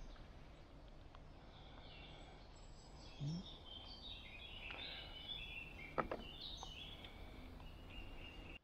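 Faint birdsong outdoors: short warbling and chirping phrases, busiest in the middle, over a quiet background hush. A brief low rising sound comes about three seconds in, and a single sharp click near six seconds.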